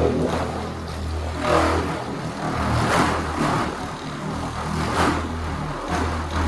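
Electric buffing polisher running with a steady low hum, its pad swishing across the car's paint in sweeps every second or two while it cuts buffing compound into the finish.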